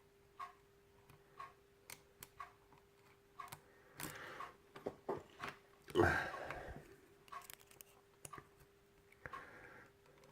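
Lock-picking tools scraping and clicking inside a pin-tumbler lock, getting louder with a rough scrape about six seconds in. Regular faint ticking and a steady low hum run underneath.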